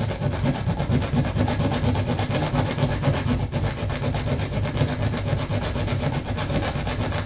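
A bare hacksaw blade worked by hand inside a wall cavity, sawing back and forth through the nail that holds a plastic outlet box to a stud, in quick, steady strokes.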